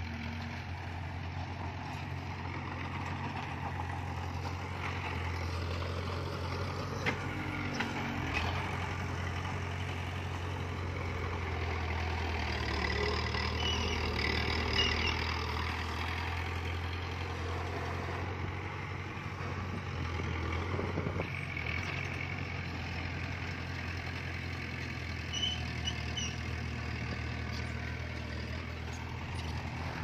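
Heavy diesel earthmoving machinery running with a steady low engine drone, with a few short knocks and clanks over it.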